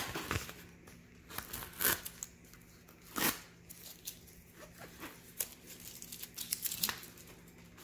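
A rolled diamond painting canvas with its plastic cover film crinkling and rustling as it is unrolled and handled, in short irregular rustles and crackles, the loudest about two and three seconds in.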